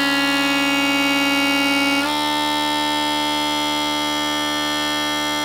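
Flemish bagpipes playing a harmonic scrunch: the chanter holds its lowest note, C sharp, clashing against the drones sounding D. About two seconds in it steps up to D and resolves, so that all the pipes sound the same note, held steady.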